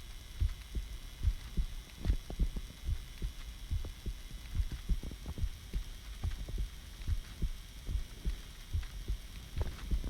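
A person's heartbeat: a steady run of low thumps, many in close lub-dub pairs.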